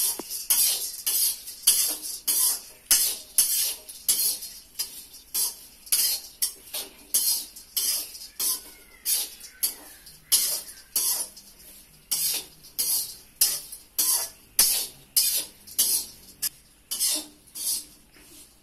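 Metal spatula scraping and stirring inside a metal kadhai (wok), in regular strokes about two a second.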